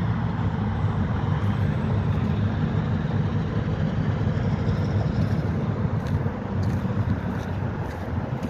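Steady low rumble of Norfolk Southern diesel switcher locomotives running as they move along the track.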